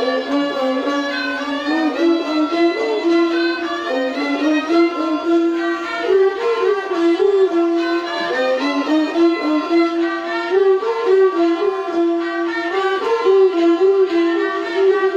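A bowed fiddle playing a continuous, ornamented melody of a Thai classical overture (homrong), with sliding notes and quick turns.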